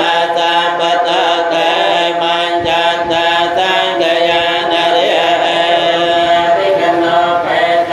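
Cambodian Buddhist monks chanting paritta, the protective chants in Pali, in steady recitation with a regular syllable rhythm.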